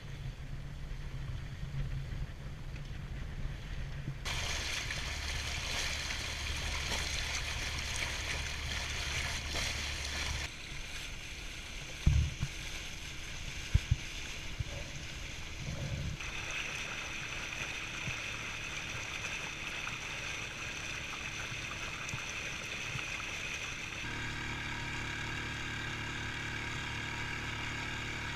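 Water rushing along the hull of a small sailboat under way, with wind, the mix changing abruptly several times. In the later part a small boat engine runs steadily as the boat motors, with a few sharp knocks in the middle.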